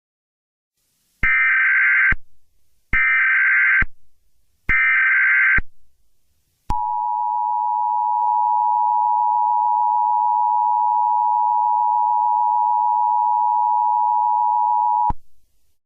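Emergency Alert System broadcast tones. First come three short bursts of SAME header data, digital buzzing about a second long each. Then the two-tone attention signal (853 and 960 Hz) holds steady for about eight seconds and cuts off, the signal that an emergency alert message is about to follow.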